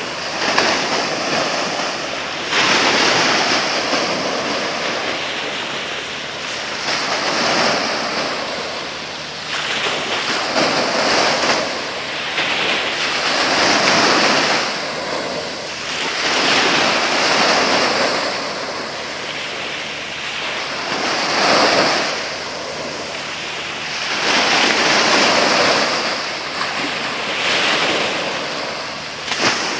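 Sea waves breaking and washing in, swelling in a new surge every two to four seconds.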